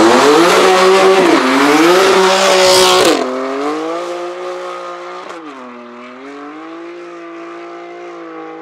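BMW coupe's turbocharged straight-six revving hard in a burnout, the rear tyres squealing and spinning for about three seconds. The tyre noise then stops, and the engine keeps pulling as the car drives off, fading, with a brief dip as it changes gear about five seconds in.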